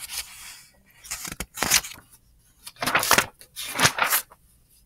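Pages of a paper textbook being turned over: four or five short rustling bursts.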